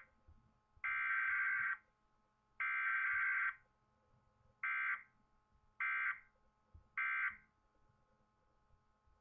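Emergency Alert System digital data bursts, the harsh warbling two-tone modem screech of the SAME code. Two header bursts of about a second each follow the tail of a third, then three shorter end-of-message bursts about a second apart mark the end of the weekly test.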